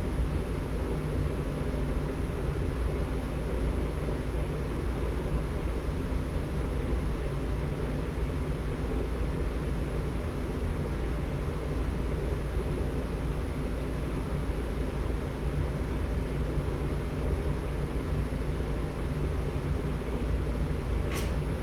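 Steady low rumble of a home furnace running, with one brief sharp click near the end.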